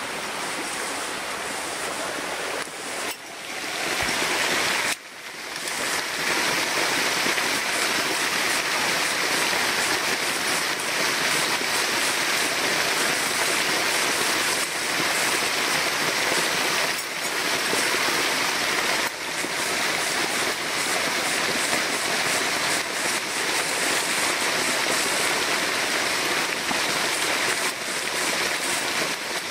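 Steady rushing and splashing of a small waterfall pouring over a rock ledge close by, louder and even from about five seconds in.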